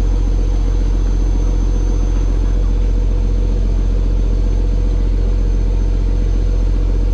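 A fishing boat's inboard engine running steadily, a deep, even drone that does not change.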